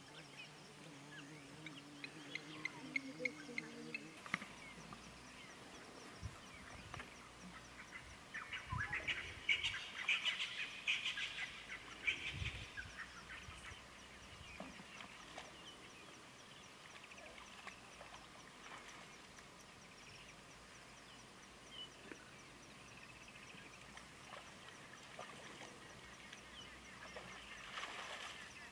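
Faint animal calls: a drawn-out, lower pitched call over the first four seconds, then high chirping and twittering, busiest from about eight to thirteen seconds in and sparse after.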